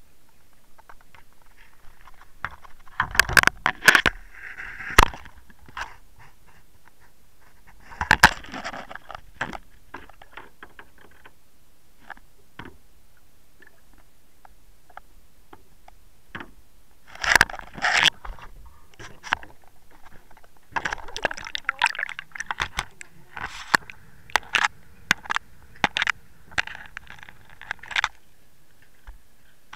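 Underwater camera housing knocking and scraping in irregular bursts a few seconds apart, as the camera is jostled on the line, with a busier run of clicks and scrapes near the end.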